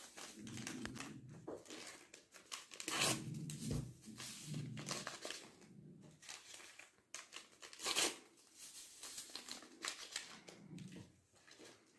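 Small paper sachets of vanilla sugar being torn open and crinkled, in several short tearing and rustling sounds, as their powder is shaken out.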